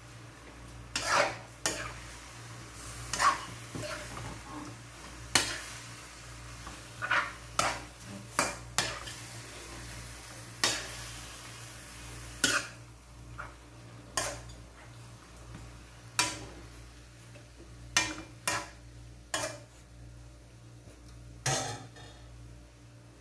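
Metal serving spoon scraping and clanking against an aluminum wok as chunks of marinated pork are stirred: irregular knocks, roughly one a second, over a faint sizzle of frying.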